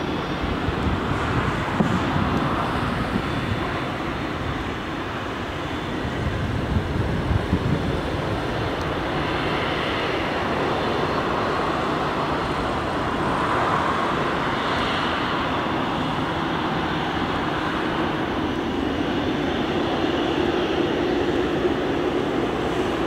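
Airbus A321-211's CFM56 jet engines running at taxi power, a steady rumbling hiss with a faint whine, as the airliner taxis along the runway.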